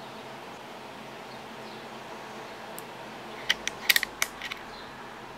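A quick run of about eight sharp mechanical clicks within one second, starting about three and a half seconds in, over a steady faint hiss.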